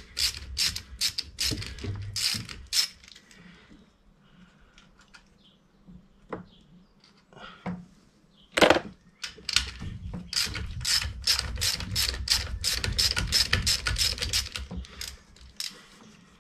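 Socket ratchet clicking in quick runs as a nut on the engine's inlet manifold is undone. There is a burst of clicks at the start, one louder clack about nine seconds in, then a longer steady run of clicks until near the end.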